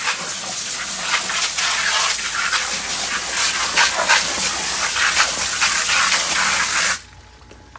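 Garden hose spray nozzle jetting water down into a sump pit, a loud splashing hiss that cuts off suddenly near the end when the nozzle is shut off.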